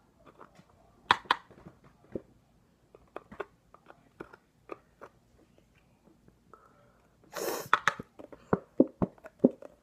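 A nearly empty glue bottle squeezed out into a bowl: irregular wet clicks and spurts, with a short hiss of air about seven and a half seconds in followed by a few louder splutters.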